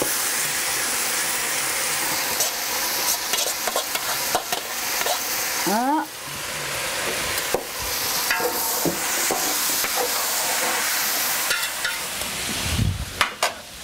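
Chopped tomatoes dropped into a hot pot of frying onions, garlic and ginger, sizzling hard and steadily, with a spoon scraping and knocking against the bowl and pot.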